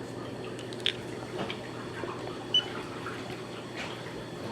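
Water running and swirling in a pedicure foot-spa basin, over a steady low hum, with a short high beep about two and a half seconds in.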